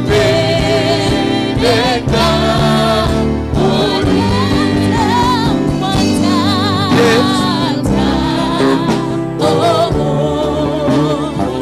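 Live gospel worship song: a woman's lead voice, sung with a wide vibrato, over other singers and sustained electronic keyboard chords.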